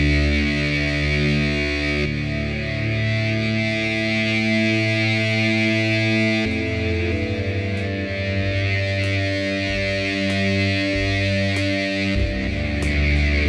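Dark ambient music: long sustained droning chords over a hissy wash, the chord shifting about two seconds in, again past the middle, and near the end.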